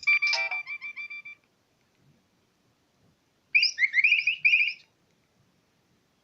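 Nokia 3100 mobile phone ringtones: one tune ends on a repeating note that fades out over about a second, then after a pause a different ringtone plays a short burst of quick rising, chirpy notes for about a second.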